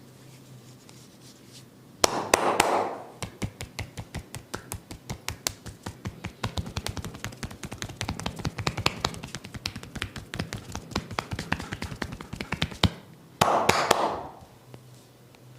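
Head massage: a loud crackling hair crack, then rapid tapping on the head at about five taps a second for some ten seconds, ending in a second loud hair crack.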